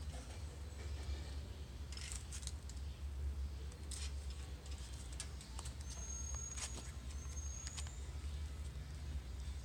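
Leaves crackling and snapping in scattered sharp clicks as a green iguana tears at and bites the foliage, over a steady low rumble. Two short high whistles, the second rising slightly, come about six and seven seconds in.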